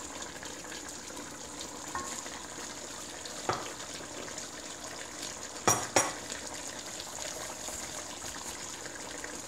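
Chicken adobo simmering in its thick, reduced sauce in a metal pot, with a steady sizzle, as a wooden spatula stirs the pieces. A few knocks against the pot break in, the loudest two close together about six seconds in.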